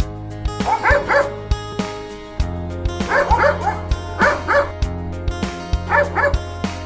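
Dogs barking at a monkey in quick clusters of two or three barks, about four times, over background music with a steady beat and bass.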